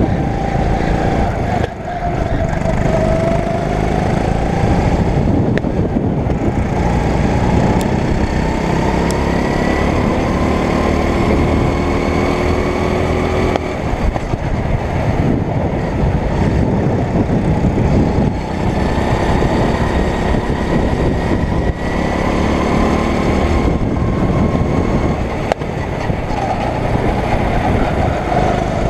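A small single-cylinder four-stroke go-kart engine running hard. Its pitch climbs and falls several times as the throttle is opened and lifted.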